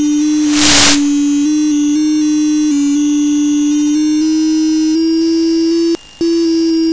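A steady electronic tone with overtones, stepping up and down in pitch every fraction of a second. There is a short burst of hiss about half a second in and a brief cut-out near the end.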